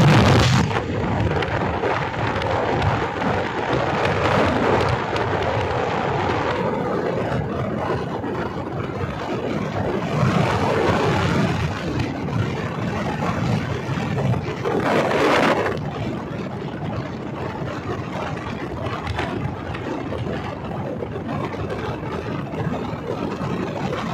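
Riding on a moving motorcycle: wind rushing over the microphone with the engine running underneath, and a few louder gusts of buffeting, the strongest right at the start.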